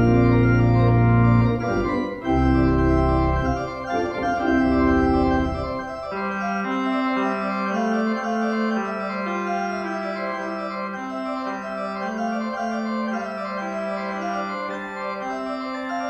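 Church organ playing the postlude: loud full chords over a deep pedal bass, which drops out about six seconds in, leaving quieter held chords in the middle and upper range.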